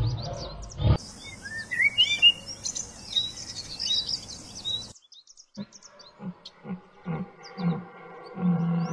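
Birds chirping in short, rising calls, after the fading tail of a deep low sound. About halfway through, a series of short low calls from an animal repeats roughly twice a second under faint high chirps.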